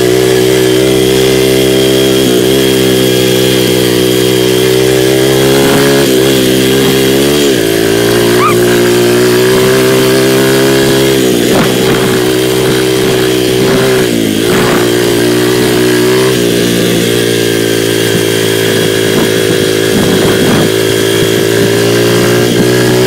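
Dirt bike engine running under way, held at a steady pitch with the revs dropping and climbing back up several times, about a third of the way in and twice around the middle, as the throttle is eased off and opened again.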